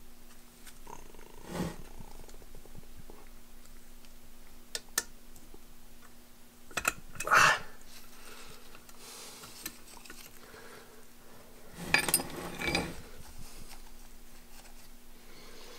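Metal parts of an imported super spacer being handled and fitted together on a workbench: scattered clinks and scrapes, the loudest about seven seconds in and a cluster about twelve seconds in, over a steady low hum.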